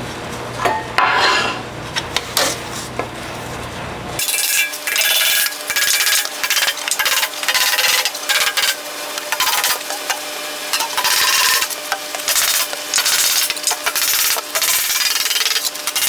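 Hammer-and-dolly work on a sheet-steel fender panel: after a few quieter scrapes, runs of quick metallic blows with a ring begin about four seconds in, knocking the panel's edge up to shape.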